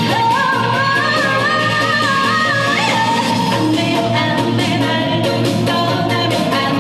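Trot song performed live: a voice holds a long, wavering melody note that steps up, then settles on a lower note, over an amplified pop backing track with a steady beat.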